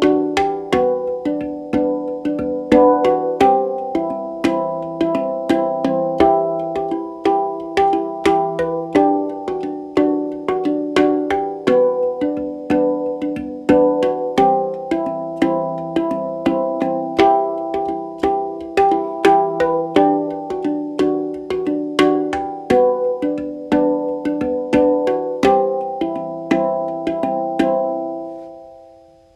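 Background music: a brisk melody of short, quickly decaying plucked-sounding notes in a steady rhythm, fading out near the end.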